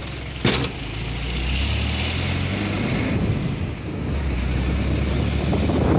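Moving vehicle's engine running with road noise, heard from inside the vehicle, with one sharp knock about half a second in.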